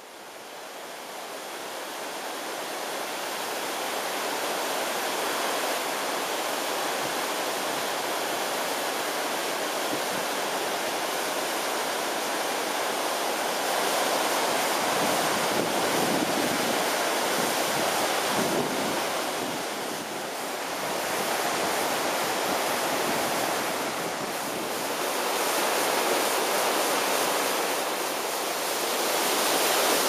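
The Ogwen waterfall's white water pouring down its rock chutes: a steady rushing noise that fades in over the first few seconds, then holds with gentle swells.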